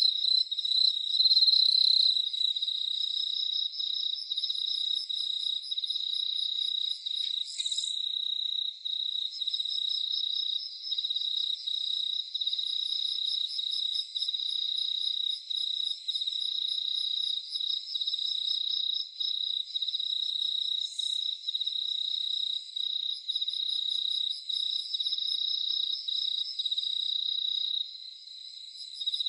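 A chorus of crickets trilling steadily at night, several overlapping high-pitched pulsed trills at different pitches, with a fainter, higher insect trill coming and going. A short faint call cuts in two or three times.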